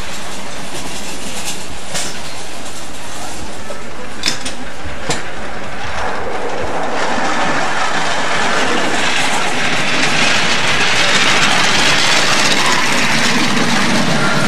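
Miniature live-steam locomotive hauling a passenger train past on ground-level track: a running rush that builds through the second half and is loudest around eleven seconds in, with a few sharp clicks earlier on.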